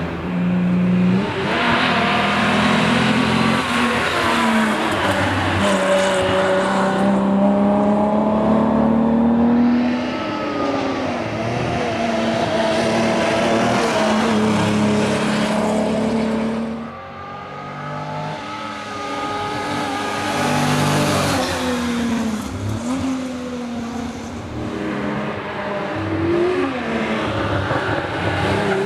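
1961 Ford Zephyr rally car's straight-six engine driven hard, its note climbing and falling again and again as it revs through the gears and eases for corners. About seventeen seconds in the engine drops away sharply, then builds again.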